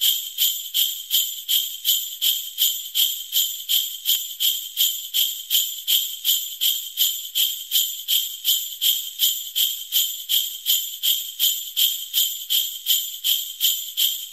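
Sleigh bells shaken in a steady, even rhythm, about three jingles a second, cutting off suddenly at the end.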